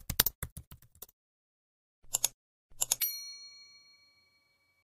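Sound effects of a subscribe animation: keyboard typing clicks for about a second, then two mouse clicks, and a single bright bell ding that rings out for nearly two seconds.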